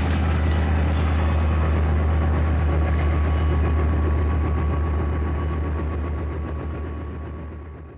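Leopard AS1 tank's diesel engine running with a deep steady drone and a regular clatter of its tracks, fading out near the end.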